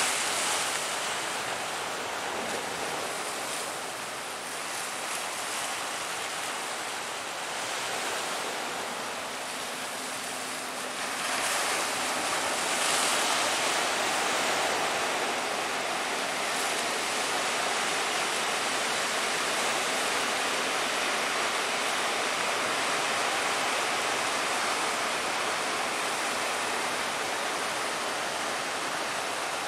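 Sea waves breaking and a strong wind blowing, a continuous rushing noise that grows louder about eleven seconds in.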